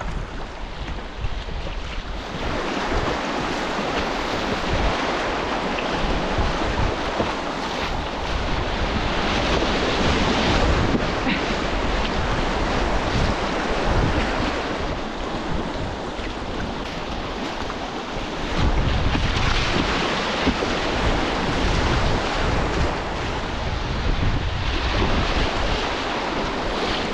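Rushing whitewater of a river rapid, a steady hiss that swells and eases, with wind buffeting the microphone in a fluttering low rumble.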